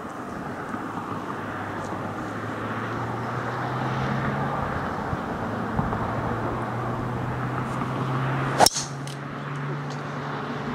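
A driver striking a golf ball off the tee: one sharp crack about three quarters of the way through, the loudest sound here. A steady low hum runs underneath.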